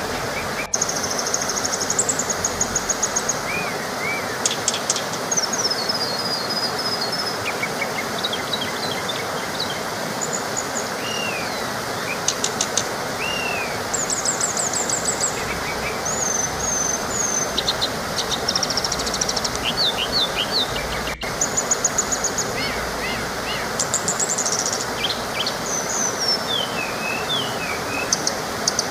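Small waterfall rushing steadily, with many songbirds chirping and trilling over it. The sound drops out for an instant twice, about a second in and about two-thirds of the way through.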